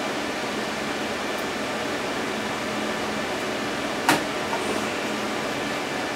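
A steady fan hum throughout, with one sharp plastic click about four seconds in: a RAM slot's retention latch snapping open as a DDR4 memory stick is released from the motherboard.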